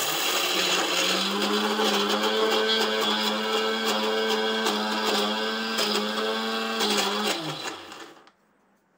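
Electric mixer grinder grinding chutney in its stainless steel jar: the motor starts abruptly and runs at a steady high speed for about seven seconds, then is switched off and winds down with a falling pitch.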